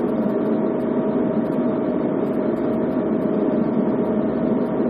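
Potter's wheel motor running steadily, with a constant whine over an even hum.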